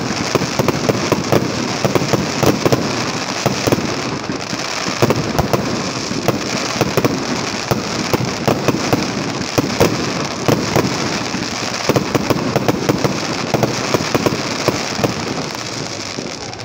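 Fireworks going off in quick succession: a dense, continuous crackle packed with many sharp pops, easing off a little near the end.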